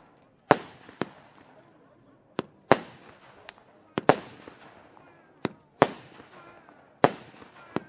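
Weco Roundhouse Kick fireworks firing aerial shots: about ten sharp bangs, often in close pairs a second or two apart, each trailing off in a short echo.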